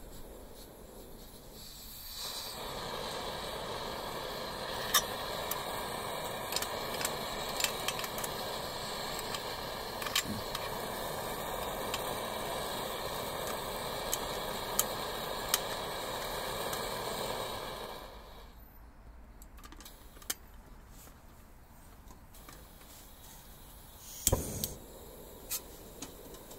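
Optimus 99 liquid-fuel stove burner running with a steady hiss of flame, starting about two seconds in and stopping about eighteen seconds in, with a few sharp metallic ticks over it. A single sharp knock comes near the end.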